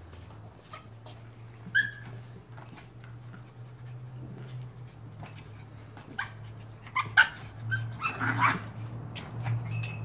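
Small dog yipping and barking in short sharp bursts: once about two seconds in, then several times in the second half, over a low steady hum.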